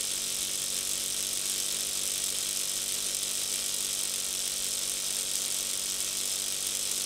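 Small battery-powered pen-style pet trimmer running with a steady buzz, worked over a dog's paw and nail.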